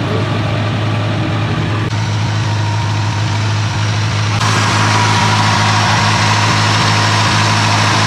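An engine idling steadily, a low hum with a hissy upper layer that jumps up suddenly about two seconds in and again at about four and a half seconds.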